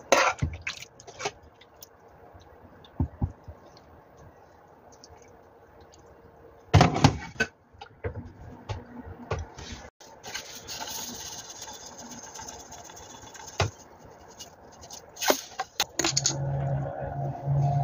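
Tableware being handled on a tray: clicks and knocks of dishes and a spoon. About ten seconds in, a sesame-seed shaker bottle is shaken over the food for a few seconds with a rattling hiss. A glass cup is set down with a click shortly before music comes in near the end.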